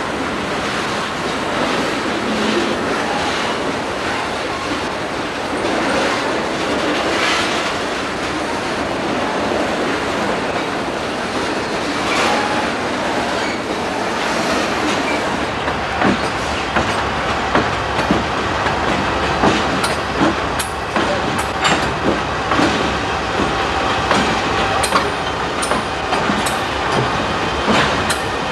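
Freight train of autorack cars rolling past close by: a steady rumble and rattle of steel wheels on rail. About halfway through, sharp clicks and knocks from the wheels come more and more often.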